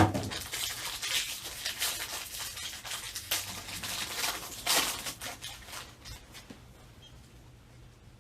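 Wrapper of a 2021 Topps jumbo pack of baseball cards being ripped open and crinkled: a sharp tear at the start, then several seconds of crackling and rustling that die away about six seconds in.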